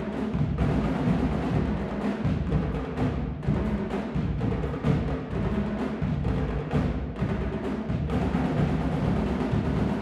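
Marching drumline of snare drums, tenor drums and bass drum playing together, a dense, continuous run of drum strokes with strong bass drum hits underneath.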